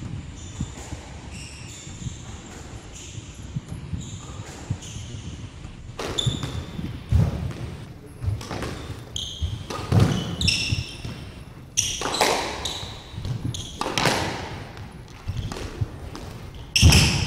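Squash rally: the ball struck by rackets and smacking off the walls at an irregular pace, with short high squeaks of shoes on the wooden court floor. The hits get louder and sharper from about six seconds in, with one very loud strike near the end.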